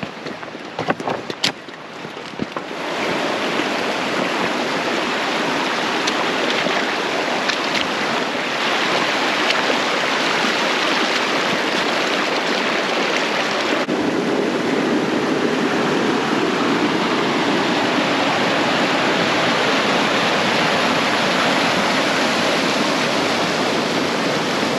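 Steady rushing of a swift-flowing mountain trout stream, coming in loud about three seconds in. A few sharp clicks come before it.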